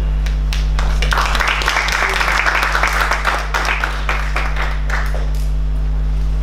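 Audience applauding in a hall, swelling about a second in and dying away around five seconds in, over a steady low electrical hum.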